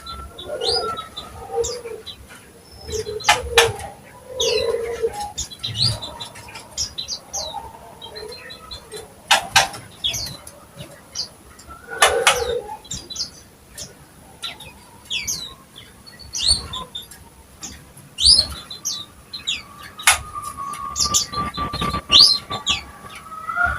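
Green leafbird (cucak ijo) singing busily: a long run of quick, sharp chirps and whistled notes sliding up and down, broken now and then by sharp snaps.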